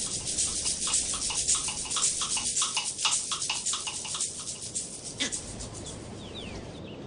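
An animal's rapid pulsed calling, several pulses a second, that stops about five seconds in. Faint short bird chirps follow near the end.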